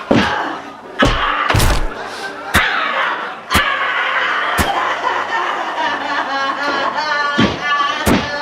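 Heavy blows smashing the bones of hands and feet, about seven slams at uneven intervals, the last coming after a gap of a few seconds.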